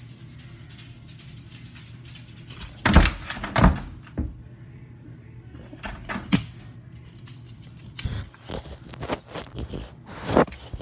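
Dogs jumping and landing close by: a series of sharp thuds and knocks, the loudest about three to four seconds in, another around six seconds, and a cluster near the end.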